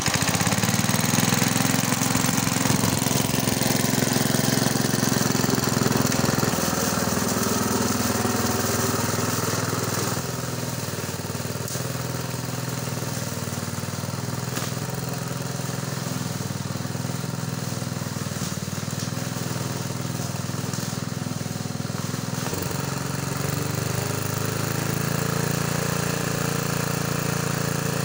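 Lawn mower's small petrol engine running steadily at high revs, now holding its speed after its carburettor diaphragm has been cleaned. It is loudest for the first ten seconds, eases a little, then changes pitch again about 22 seconds in.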